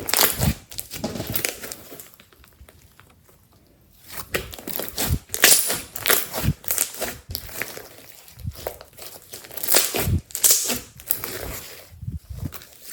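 Glossy slime being squished, stretched and poked by hand, making irregular sticky crackles and pops, with a quieter lull about two seconds in.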